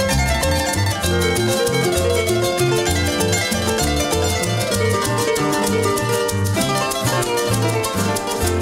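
Instrumental Paraguayan folk music: a harp plays fast runs of plucked notes over a steady bass, with guitar accompaniment.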